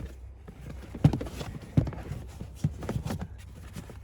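Floor mats being handled in a truck cab: a few dull knocks and thumps, the loudest three about a second, two seconds and near three seconds in, with rustling between.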